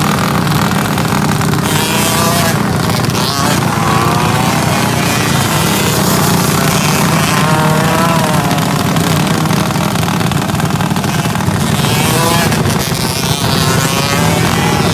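125 outlaw dirt karts racing round a dirt oval, their engines revving up and falling off as they take the turns, over a steady low rumble.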